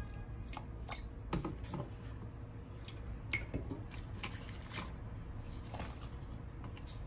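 Vegetables being placed into a stainless steel pot of water: scattered light knocks, clicks and small splashes as the pieces go in and the hand moves among them, over a low steady hum.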